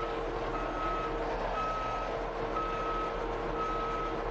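Skid steer's backup alarm beeping about once a second as the machine reverses. Under it, the machine's engine runs steadily with a constant lower tone.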